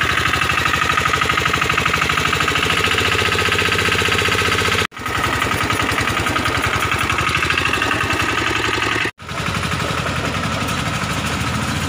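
A 10 hp mini tractor's engine running under load with rapid, even firing beats, together with the rushing air of its tractor-mounted blower sprayer throwing out mist. The sound cuts out for a moment twice.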